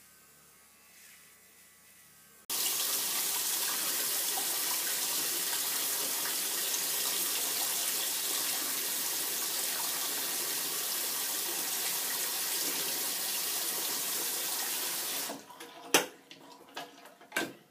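A bathroom sink tap turned on suddenly about two and a half seconds in, with water running steadily into the sink for about twelve seconds before it is shut off. A couple of sharp knocks follow near the end.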